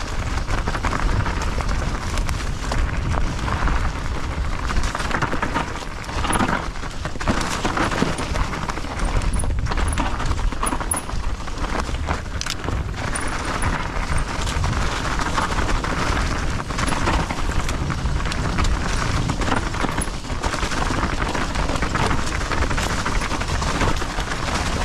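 A mountain bike riding down a dirt trail: steady wind rush on the microphone over the noise of the tyres, with frequent knocks and rattles from the bike jolting over roots and bumps.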